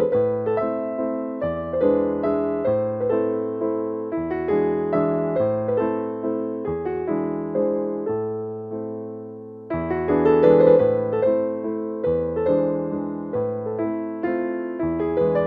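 Background piano music: a gentle melody of struck, fading notes over low bass notes, with a new phrase starting about two-thirds of the way through.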